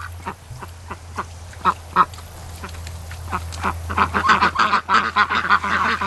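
Flock of adult Pekin ducks quacking: scattered single quacks at first, building about four seconds in to a louder, denser chorus.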